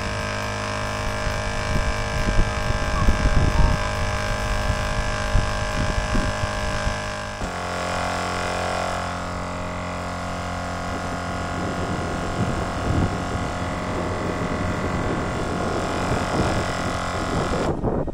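12V Tozalazz dual-piston air compressor running steadily under load, airing up four tires at once. About seven seconds in its sound changes, the sign of it losing performance on a weak, failing battery.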